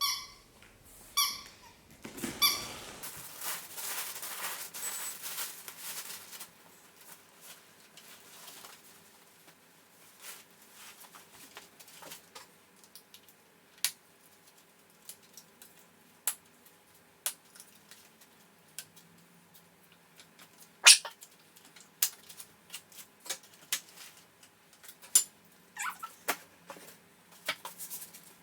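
A dog whining in three short high squeaks in the first couple of seconds, followed by a few seconds of rustling and then scattered light clicks and taps.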